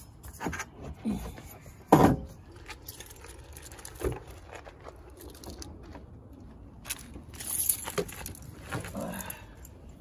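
Knocks, clicks and scraping from handling a metal car-audio amplifier and its connectors, with one loud thump about two seconds in. Later come rustling and clicks from getting into the car's driver seat.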